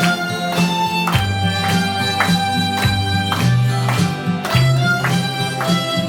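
Two harmonicas playing a melody in a duet, over accompaniment with a moving bass line and a steady beat.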